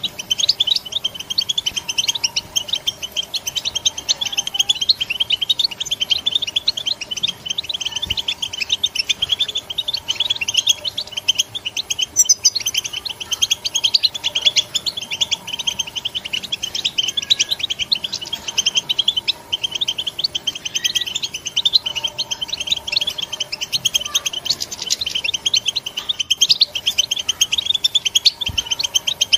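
European goldfinch giving the rapid, unbroken twittering chatter of short chirps that goldfinch keepers call 'batbata', the call used to set other goldfinches singing.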